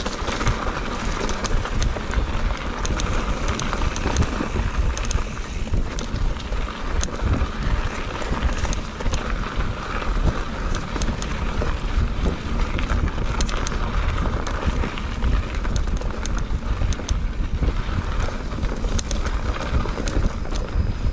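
Mountain bike riding down a dirt trail strewn with dry leaves: wind rumbling on the microphone over steady tyre noise, with frequent sharp clicks and clatter from the bike over bumps.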